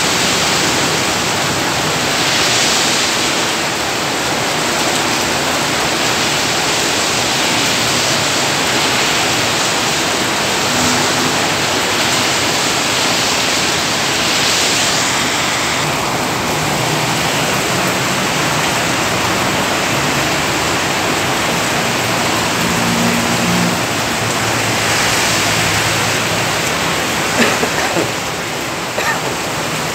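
Heavy rain pouring down, a steady loud hiss, with a few sharp clicks near the end.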